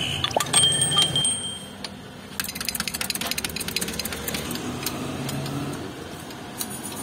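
Steel parts clinking, with one knock that rings for about a second, as a motorcycle crankshaft is set into a steel press fixture. A few seconds in comes a quick run of light metallic ticks.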